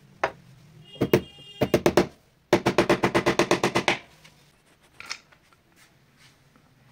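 Hammer tapping nails of plastic cable clips into a wooden batten: a few separate knocks, then a fast run of about a dozen light strikes lasting a second and a half, and a couple more knocks later.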